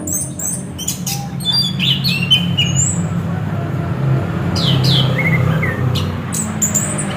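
Chestnut-capped thrush (anis kembang) calling: scattered short, high chirps and whistles, some falling in pitch, over a steady low hum.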